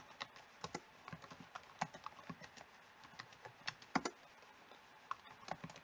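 Faint, irregular keystrokes on a computer keyboard, with a couple of louder key presses about two and four seconds in.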